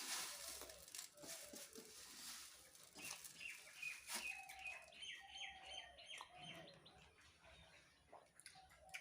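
Faint bird calls: a quick series of repeated high chirps in the middle, with lower, bending call notes scattered throughout. A crisp crackling noise fills the first few seconds.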